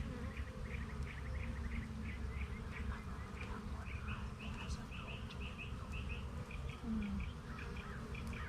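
Honey bees buzzing in a steady low hum around an opened colony, with short high chirps repeating throughout.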